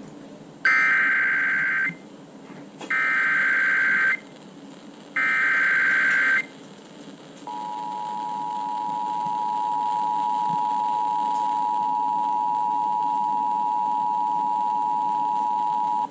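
Emergency Alert System header: three short bursts of harsh, screechy SAME data, then the steady two-tone EAS attention signal. The tone swells in over a couple of seconds and holds for about eight seconds. It announces a National Weather Service severe thunderstorm warning.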